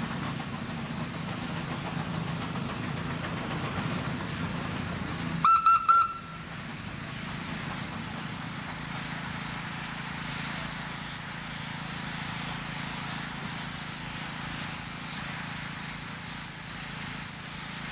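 Steam whistle on a traction engine giving three quick, high toots about five and a half seconds in. Under it runs a steady low hum and hiss from the working engines.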